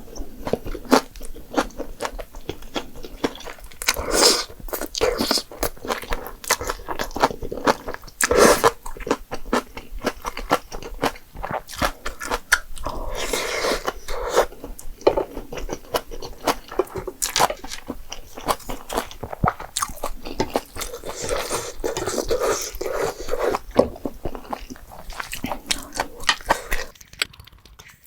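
Close-miked eating: steady chewing and biting with many wet mouth clicks, from a mukbang meal of jjapagetti noodles and spicy green onion kimchi. It dies away just before the end.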